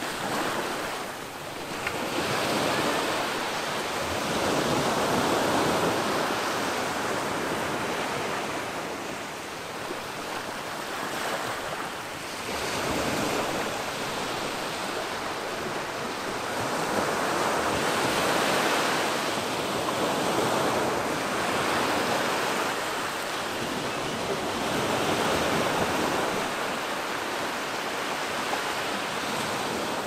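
Ocean waves washing onto the beach, a continuous rush of surf that swells and fades in slow surges every several seconds.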